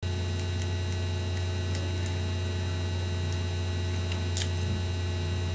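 Steady low electrical mains hum, with a single faint click about four seconds in.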